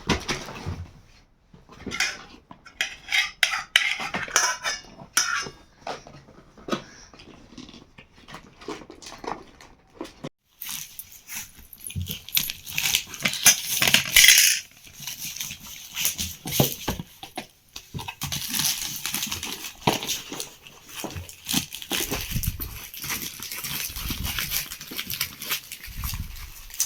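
Small hard objects clicking and clattering as a young child handles them and puts them into a box, with bouts of rustling.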